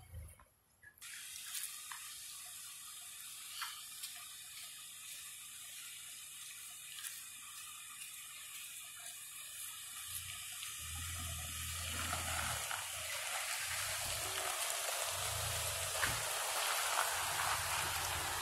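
Tyres of a Ford Expedition SUV crunching over a gravel lane as it rolls slowly up, growing louder over the last several seconds with low rumbles underneath. A steady hiss runs throughout.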